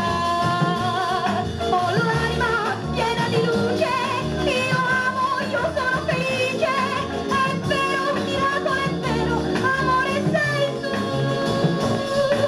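A pop song with a sung vocal line and a steady bass beat, played from a vinyl single on a 1963 Fidelity UA7 record player.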